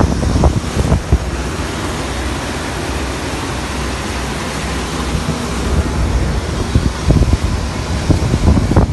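Wind buffeting the microphone in gusts over the steady rush of water along the hull and wake of a Starfisher 840 motor boat under way at speed. The buffeting eases in the middle and picks up again near the end.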